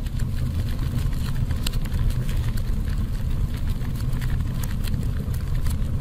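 Fire sound effect: a steady low rumble of burning flames with faint, scattered crackles.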